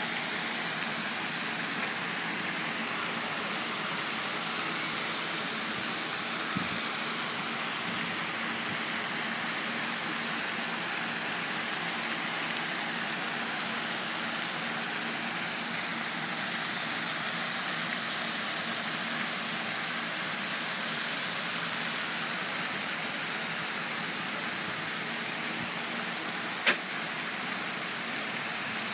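Steady splashing hiss of a floating pond fountain's spray falling back onto the water. One short sharp click near the end.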